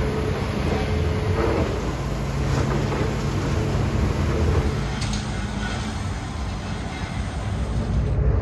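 Demolition excavator's diesel engine running with a steady low rumble, with a few sharp cracks of concrete being crushed, the clearest about five seconds in.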